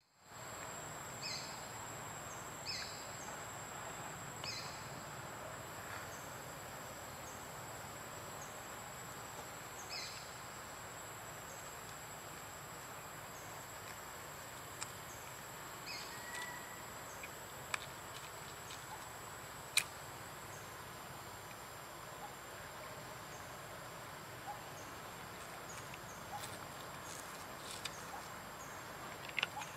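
Forest ambience: a steady high-pitched insect drone over a soft background hiss, with short high chirps now and then and a few sharp clicks.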